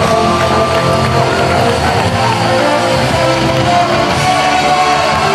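Music playing, with held and sliding notes over a steady loudness.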